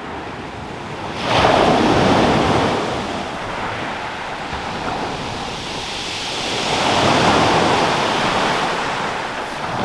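Sea waves breaking and washing on a shingle beach, surging about a second in and again around seven seconds, with wind on the microphone.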